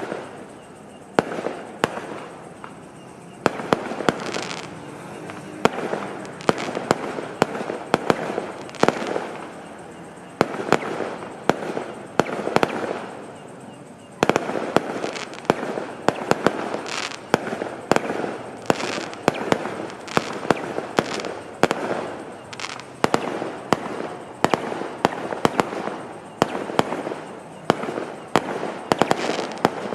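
Fireworks bursting in quick, irregular succession: sharp bangs, often several a second, over a continuous crackling haze.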